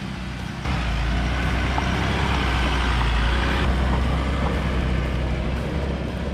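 Motor vehicle running with a steady low engine rumble and road noise that grows suddenly louder about a second in and eases off near the end.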